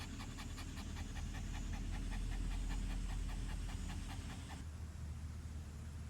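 A dog panting fast and evenly, about five breaths a second, as it cools itself in the summer heat; the panting stops about four and a half seconds in.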